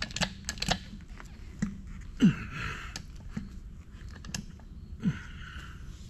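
Hydraulic hand pump being worked to close a hydraulic cable crimper on a lug for 35 mm² battery cable: light clicks and clacks, then two pump strokes about 2 and 5 seconds in, each a short falling creak followed by a brief hiss.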